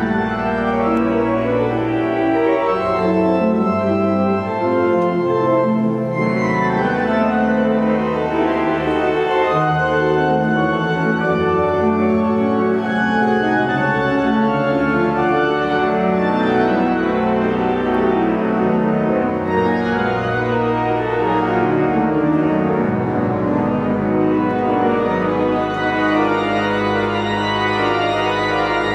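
The great pipe organ of Notre-Dame de Paris playing loud, sustained full chords over deep pedal bass notes, echoing in the cathedral.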